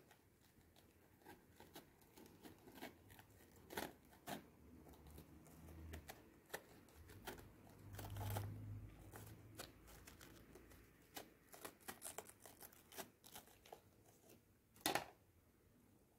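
Small knife cutting around the stem of a raw green bell pepper, with quiet crisp crackles and snaps of the pepper flesh as the core is worked loose and pulled out; the sharpest snaps come near the end.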